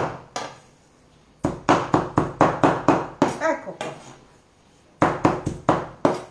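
Chef's knife chopping raw beef diaphragm for tartare on a wooden cutting board: quick knocks of the blade through the meat onto the wood, about five a second, in two runs with a pause between.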